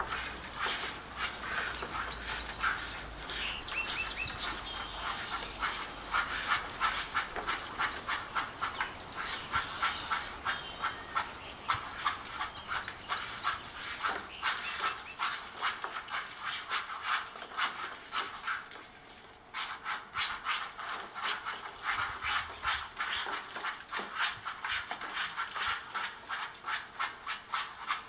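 A steady run of short, rhythmic rasping strokes, about four a second, with a few short high chirps in the first half.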